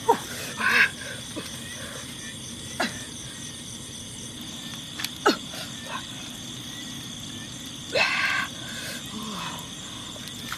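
Steady, high-pitched night insect chorus, with several short calls that drop sharply in pitch and a couple of brief noisy bursts, about a second in and near eight seconds.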